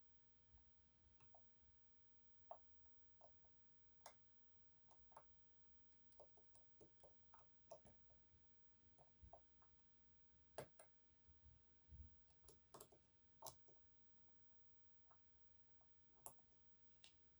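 Faint, irregular small clicks and ticks of a lockpick hook and tensioner working the sliders inside an EVVA 3KS high-security lock, with a few sharper clicks around the middle.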